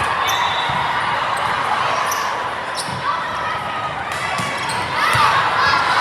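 Balls bouncing on a gym floor during a volleyball match, amid a steady murmur of voices echoing in a large hall.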